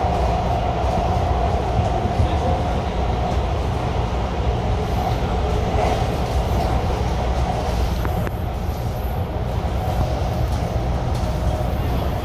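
MARTA CQ311-series Hitachi railcar running on the rails, heard from inside the car: a steady rumble of wheels and running gear with a humming tone that fades after the first few seconds and comes back near the end.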